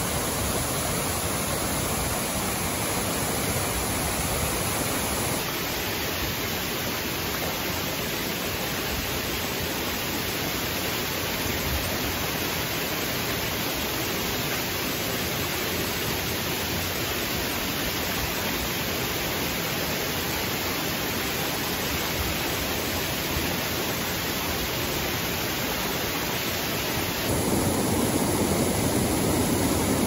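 Rushing water of a mountain stream and its small waterfalls, a steady hiss. The sound changes with the shots about five seconds in and again near the end, where it becomes louder and fuller.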